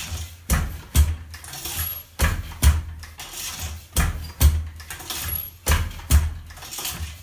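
Wooden takabata hand loom weaving: the beater knocks the weft into place twice per pick, a double knock about every 1.7 seconds, four times over, with a quieter rustle between as the shuttle is passed across.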